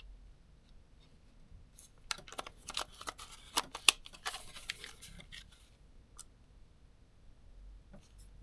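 A quick run of light, sharp clicks and taps from small camera and lens parts being handled, mostly between about two and five and a half seconds in, with a few single ticks before and after.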